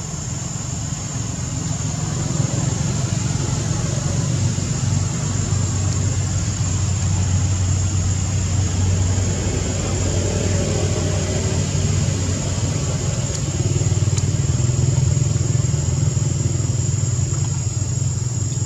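Low rumble of a motor vehicle engine running, growing louder about two seconds in and again around fifteen seconds, with a steady high-pitched whine above it.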